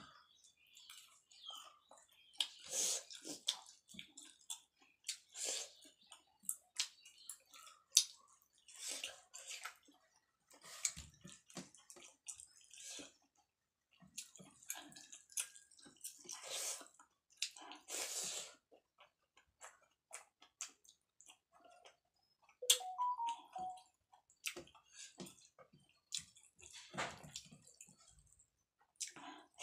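Wet chewing and mouth sounds of someone eating rice and grilled chicken, in irregular bursts with small clicks and smacks, along with fingers mixing rice on a steel plate.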